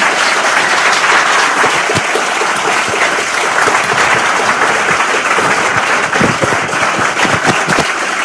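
Audience applauding: a roomful of people clapping at once, steady and dense.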